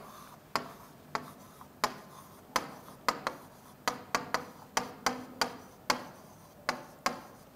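A pen tapping and scraping on a writing board as a word is written by hand: a string of sharp, irregular ticks, about two a second.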